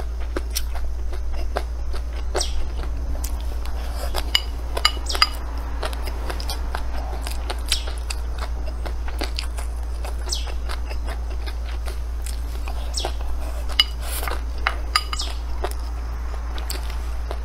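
Wooden spoon scooping fried rice and clicking against a ceramic bowl, with scattered sharp clicks and close-up eating sounds. A steady low hum runs underneath.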